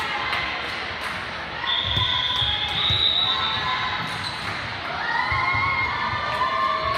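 Volleyball thuds and players' voices calling out, echoing in a gym. A high steady tone holds for about two seconds near the start.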